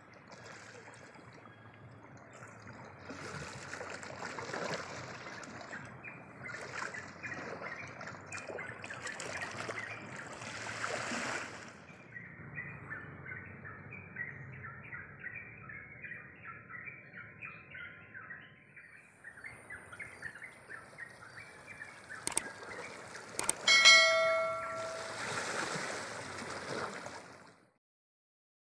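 Outdoor ambience with rapid repeated chirping calls. Near the end come two sharp clicks, then a single loud bell-like ring that fades out, and the sound cuts off.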